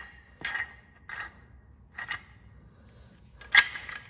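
Steel parts of a Posi Lock Model 108 three-jaw gear puller and a wrench clinking against each other as the puller is worked loose: four short metallic clinks with a slight ring, unevenly spaced, the loudest about three and a half seconds in.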